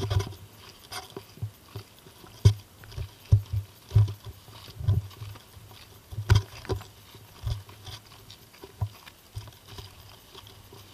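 Footsteps of a hiker walking on a bush trail: irregular soft thumps, roughly one or two a second.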